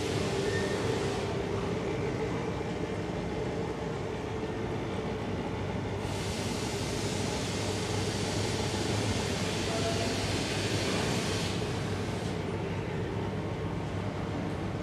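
Roller machine of a melamine paper impregnation line running steadily, a dense mechanical drone with a constant hum. A high hiss fades out about a second in, comes back about six seconds in, and stops again after about five seconds.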